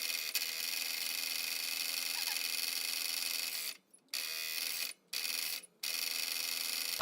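Power saw running and cutting a small piece of purpleheart wood, a steady buzz with several fixed tones. It drops out abruptly three times, briefly each time.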